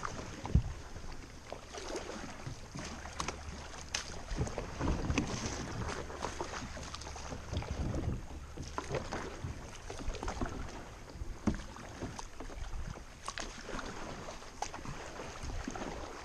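Kayak paddle strokes splashing in a shallow, rippling river, with water rushing along the hull and wind buffeting the microphone. A few sharp knocks come through, the loudest about half a second in.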